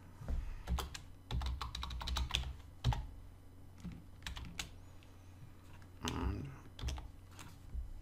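Computer keyboard typing: irregular key clicks in short runs with brief pauses between.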